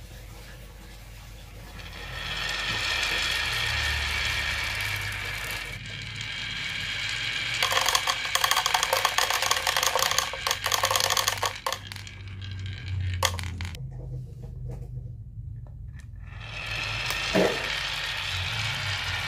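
Many small balls rolling and rattling along a wavy groove cut in a wooden board, busiest in the middle as they pour off the end into a plastic jar with a dense clatter. There is a short pause, then rolling starts again near the end.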